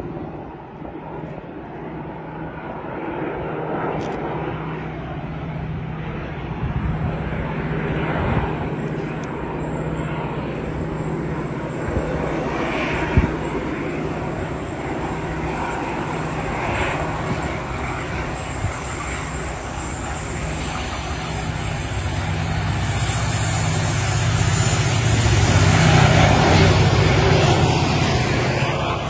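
Two diesel-electric freight locomotives, Pacific National 82 class 8227 leading 81 class 8135, hauling an empty grain train: a steady low engine drone that swells as the train approaches and is loudest as the locomotives pass close by near the end.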